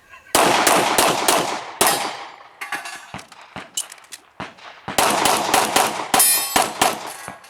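A timed string of gunshots, with steel targets clanging as they are hit: about five quick shots in the first second and a half, a few scattered ones midway, then a faster run of shots about five seconds in.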